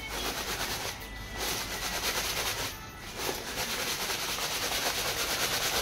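Dry fried flattened-rice (chuda) mixture with peanuts and chillies being shaken and tossed in a woven bamboo winnowing tray to mix it: a steady dry rustling hiss of the grains sliding and rattling on the bamboo, breaking off briefly about a second in and again about three seconds in.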